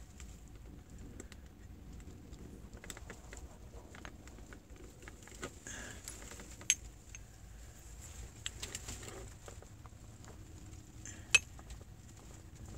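Handling noise from a small brass cannon being turned and moved on cloth: light metallic clicks and knocks, with two sharper clicks, one about halfway and one near the end.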